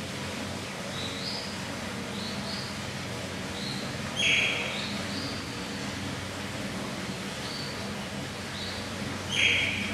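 Eurasian otter calling: two loud, high-pitched squealing calls about five seconds apart, about four seconds in and near the end, with softer short chirps in between.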